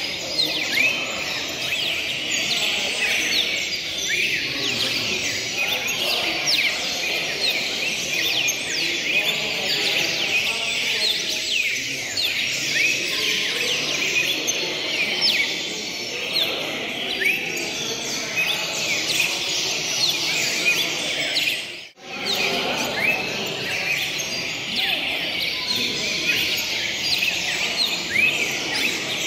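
Many caged cardinals singing and chirping at once, a dense overlapping chorus of short high notes, over a low murmur of people's voices.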